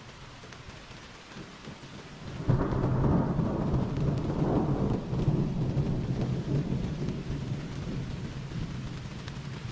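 Thunder breaking suddenly about two and a half seconds in, then a long rumble that slowly fades, over the steady hiss of rain.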